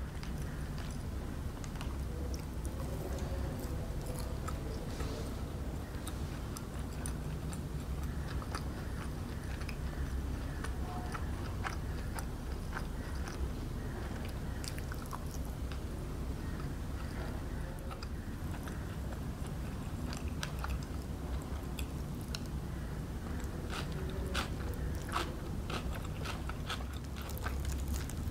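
Close-up chewing and biting of crispy fried chicken nuggets, with scattered crunches of the breaded crust over a steady low hum. Near the end the crackles come thicker as a crispy fried chicken piece is pulled apart by hand.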